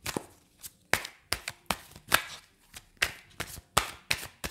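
A deck of tarot cards shuffled by hand: a run of sharp card snaps, about three a second and unevenly spaced.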